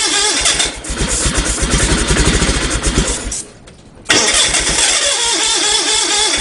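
Electric starter cranking a freshly rebuilt garden tractor engine in an attempt to start it, with starting fluid sprayed into the open carburettor intake because the fuel system is dry. It cranks in a steady rhythm, stops briefly about three and a half seconds in, then cranks again without the engine catching and running.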